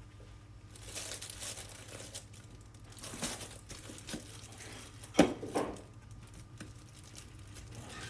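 Oyster knife scraping and prying at a small oyster's shell, with crinkling rustles of the plastic bag liner and a sharp click about five seconds in, the loudest sound. A faint low hum runs underneath.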